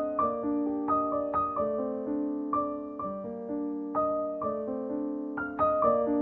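Background piano music: gentle notes and chords struck at a steady pace, each ringing and fading.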